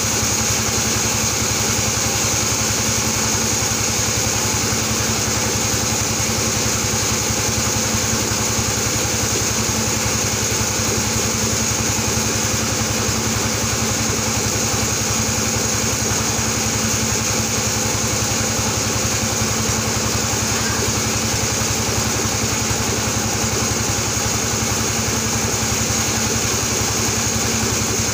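Band sawmill running with a steady, unchanging drone, its blade cutting albasia (sengon) timber.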